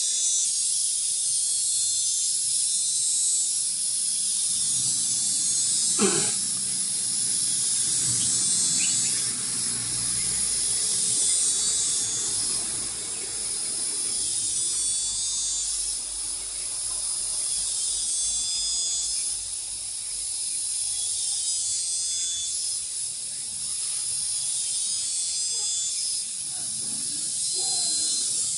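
A chorus of cicadas droning steadily at a high pitch, pulsing in even swells about once a second. A single sharp knock about six seconds in.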